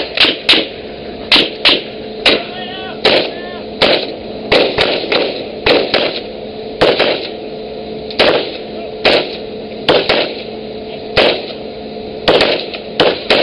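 Rifle firing single shots over a ship's rail, about twenty rounds at an irregular pace of one or two a second, each crack with a short echo, over a steady hum.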